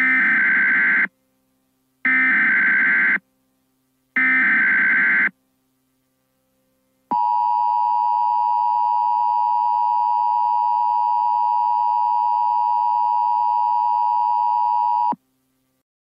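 Emergency Alert System broadcast alert: three one-second bursts of the screeching SAME digital header, about a second apart, then the steady two-tone EAS attention signal for about eight seconds, cutting off suddenly. It marks the start of a National Weather Service tornado warning.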